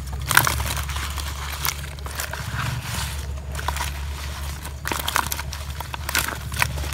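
Crinkling and crackling of large leaves rubbed over climbing perch in a plastic basin as the fish are cleaned, in irregular sharp crackles, over a steady low rumble.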